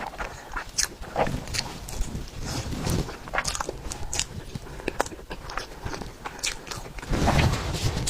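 Close-miked eating of a tiger skin roll, a soft sponge cake roll: wet chewing and mouth sounds with irregular sharp smacks and clicks, growing denser and louder near the end.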